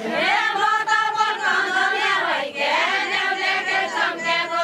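A group of women singing a Deuda song together without instruments: long, drawn-out phrases that slide up and down, with a brief break about two and a half seconds in.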